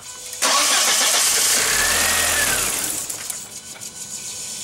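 1999 VW Passat's 1.8-litre turbocharged four-cylinder engine cranked and catching within about half a second, then running for a few seconds before it eases off after about three seconds and cuts out abruptly at the end: the start-then-die fault that was traced to a failing mass air flow sensor.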